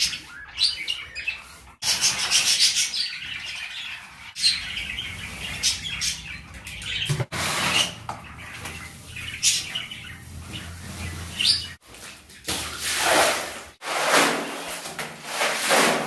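Small cage birds chirping and tweeting throughout. Broom and squeegee scraping on a tiled floor is heard, louder near the end. The sound breaks off abruptly several times.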